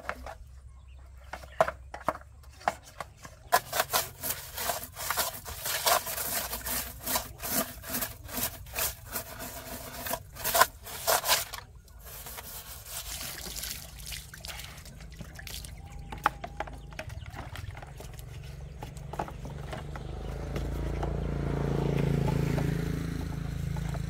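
Scrubbing inside a top-loading washing machine's tub: a run of quick strokes, about two a second, for several seconds, then quieter. A low rumble swells near the end.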